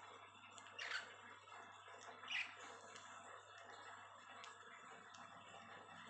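Two short, high calls from young budgerigars, about a second in and again a second and a half later.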